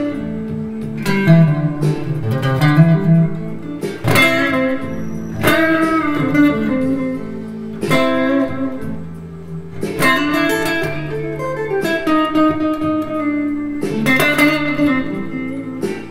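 Electric guitar, a Squier Stratocaster, playing single-note blues-scale licks in A that lean on the blue note on the third string, over a 12-bar blues backing track with a steady bass underneath.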